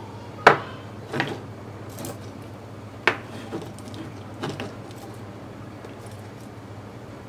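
A handful of sharp clicks and knocks from small objects handled on a wooden workbench as an 18650 cell is set into a plastic holder and cables are moved. The loudest comes about half a second in, with others near one, three and four and a half seconds, over a steady low hum.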